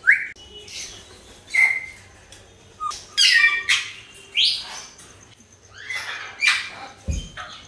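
Pet parrots calling: about half a dozen short squawks and chirps spaced through, the first a quick rising note. A low thump near the end.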